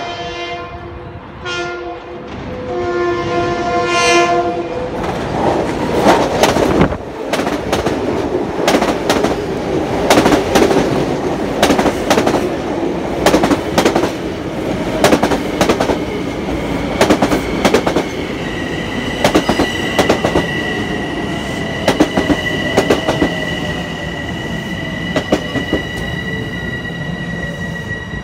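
Long Island Rail Road M7 electric multiple-unit train sounding its horn in several blasts, then rolling past with wheels clicking over rail joints. About two-thirds of the way through, a steady high-pitched whine sets in, with a falling tone under it, as the train slows to a stop.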